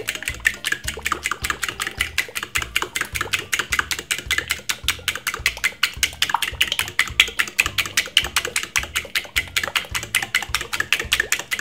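A metal fork beating eggs and butter in a ceramic bowl: a fast, steady run of clicks, several a second, as the fork strikes the bowl. The clicking stops abruptly near the end. Background music plays underneath.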